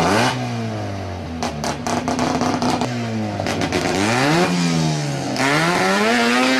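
Car engines revving hard at a drag-race start line, the pitch climbing and falling again several times. There are a few sharp cracks about one and a half seconds in, and near the end the pitch climbs steadily.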